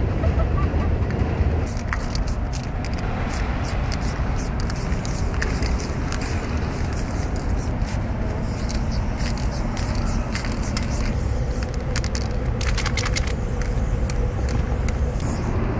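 Aerosol spray paint cans hissing in many short bursts, with a denser run of sprays about three-quarters of the way through, over a steady low background rumble.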